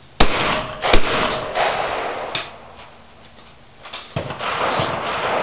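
Shotgun firing two shots about three-quarters of a second apart, both barrels at a thrown clay, each bang ringing on briefly under the shooting shelter's roof. Fainter knocks and clicks follow a few seconds later.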